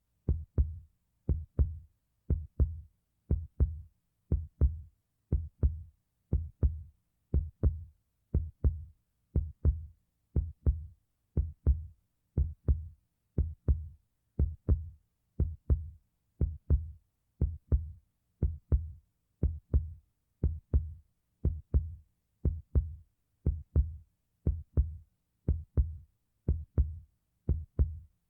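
Heartbeat sound effect: steady double lub-dub thumps, about one heartbeat a second, each beat deep with a sharp click at its onset.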